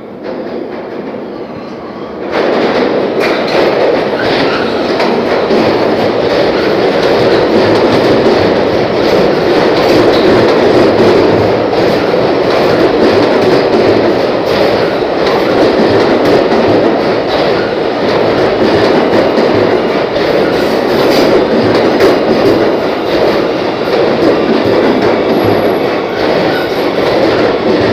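New York City subway train running alongside the platform: a loud, steady rumble of steel wheels on rails with rapid clacking over the rail joints. The noise jumps up suddenly about two seconds in as the train comes out of the tunnel into the station.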